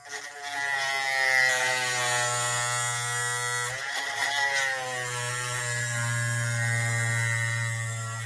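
Small pen-style rotary tool running with a fine whirr as its bit grinds out the plastic socket in an action figure's hand, a little at a time, so that a ball peg sits deeper. The pitch sags as the bit bears in and briefly cuts out about four seconds in.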